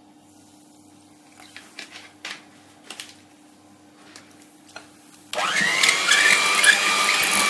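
Electric hand beater switched on about five seconds in, its motor whine rising briefly and then running steadily as it beats cake batter. A few faint clicks come before it.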